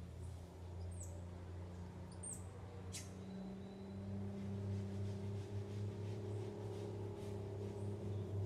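Animal calls in a tropical forest canopy: a few short, high, falling chirps in the first couple of seconds and one quick rising call about three seconds in, over a low steady hum.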